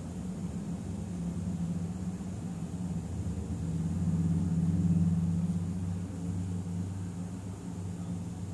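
A low, steady droning hum that swells about four to five seconds in and then eases back.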